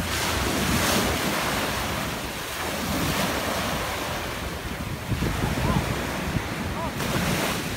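Sea waves breaking and washing up a sandy shore, with wind buffeting the microphone.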